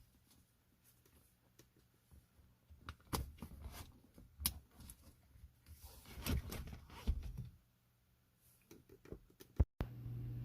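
Hands handling the seat-belt buckle and plastic trim: scattered clicks, taps and rustling in two short spells. Near the end, after a brief dropout, a steady low hum sets in.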